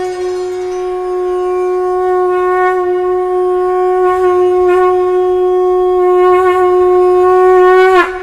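Conch shell (shankh) blown in one long held note for about eight seconds, growing slightly louder, then dropping in pitch as it breaks off near the end.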